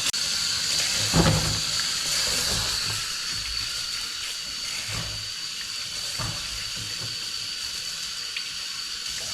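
Tap water running steadily into a sink while a fish is rinsed and cleaned, with a few short knocks from handling it.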